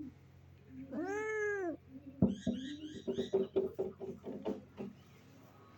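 Domestic cat giving one drawn-out meow that rises and falls in pitch, followed by about two and a half seconds of rapid, short, clipped sounds.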